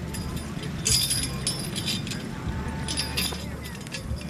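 Harness chains and metal hardware of a pair of draft horses jingling and clinking as the team walks, in uneven spells, loudest about a second in, over a low steady rumble.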